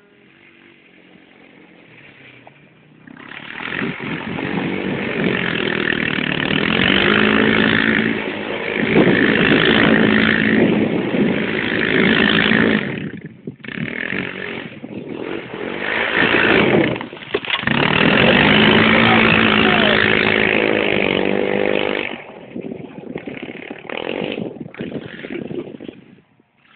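Quad bike engine revving hard, its pitch rising and falling as the throttle is opened and eased off while it spins in loose dirt. The engine briefly drops off twice, then fades away near the end as the quad drives off.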